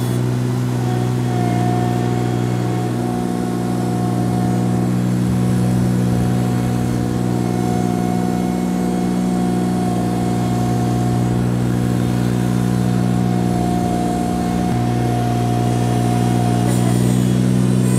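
Ventrac 4500 compact tractor's engine running steadily as it pushes snow with its front leaf plow. A thin steady whine sits above the engine hum.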